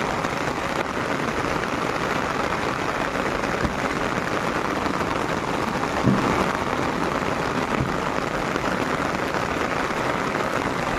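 Heavy rain falling steadily on a concrete rooftop, heard from under an umbrella. A single knock about six seconds in as a brick is set down on the covering.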